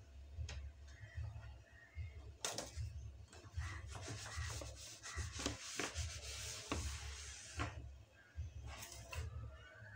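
A cloth rubbing over a plastic table mat on a countertop: rough swishing strokes with small knocks. It is loudest from about two and a half seconds in to nearly eight seconds, then comes in shorter strokes near the end.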